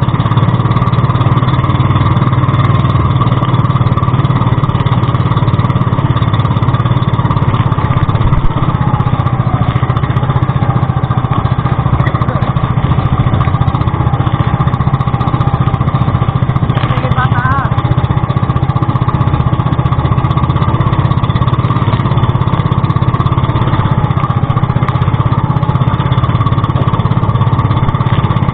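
Pumpboat's small engine running steadily at speed, an even unbroken drone.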